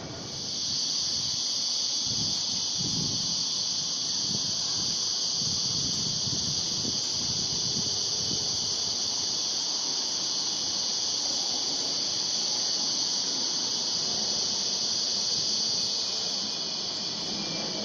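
Cicada chorus: a steady, high-pitched shrill drone that holds evenly and eases off near the end.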